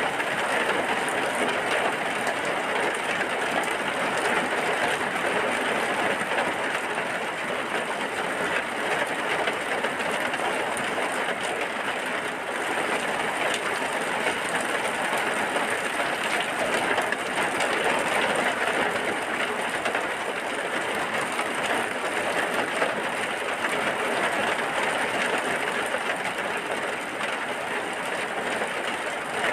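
Steady heavy rain, an even hiss of falling water with no single drops or strikes standing out.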